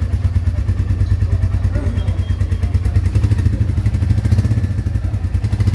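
Royal Enfield Meteor 350's single-cylinder engine idling steadily, an even, rapid low beat from the exhaust.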